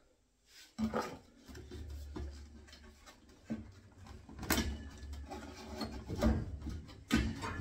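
Handling noise as a flexible grey HEP2O plastic pipe is pushed down under the floorboards: scattered knocks and rubbing of pipe against wood over a low rumble, the loudest knocks a little past halfway.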